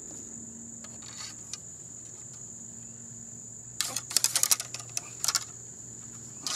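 Ramrod scraping and clicking in the barrel of a CVA Hawken black powder rifle as a tight-fitting patched ball is pushed down: a quick run of clicks and scrapes starting about four seconds in, with another near the end. A steady high insect trill goes on behind it.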